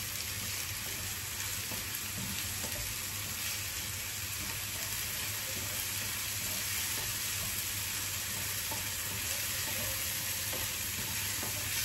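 Chopped onion, capsicum and carrot sautéing in a little oil in a frying pan, stirred with a wooden spatula: a steady sizzle. The vegetables are being cooked just until their moisture is driven off.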